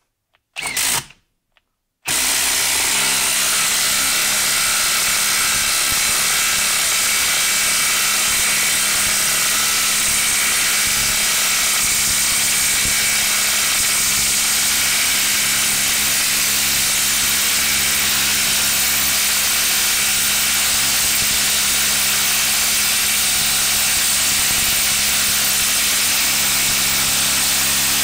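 Bosch brushless impact driver hammering continuously as it drives a 6-inch lag screw into a wood round, starting about two seconds in. It is under heavy load and having a tough time sinking the lag.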